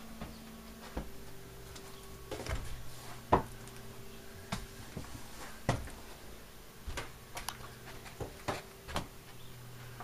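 Footsteps and knocks of someone walking on the floor of a fifth-wheel travel trailer: about ten irregular knocks and clicks, the loudest about three seconds in. A faint steady hum runs underneath.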